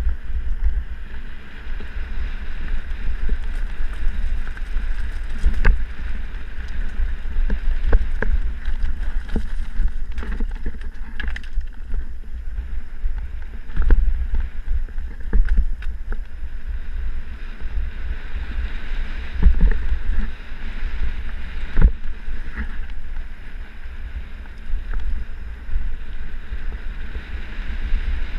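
Mountain bike riding fast down a dirt singletrack, heard from a bike-mounted or helmet camera: wind rumbling on the microphone, a steady hiss of tyres on dirt and scattered knocks and rattles as the bike hits roots and bumps.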